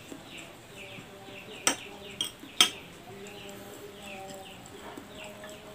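A metal spoon clinks sharply against a plate a few times, twice loudly in the middle. Small birds chirp over and over in the background, short falling notes several times a second.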